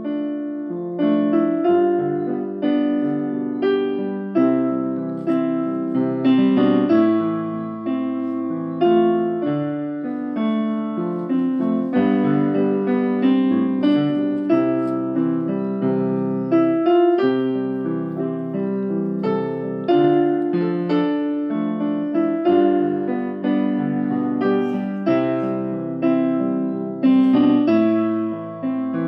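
Solo piano music: unhurried chords and melody notes, each struck and left to fade.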